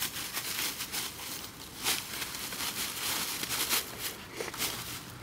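Dry fallen leaves rustling and crunching as a dog romps and pounces through them: a dense, irregular crackle with a few louder crunches.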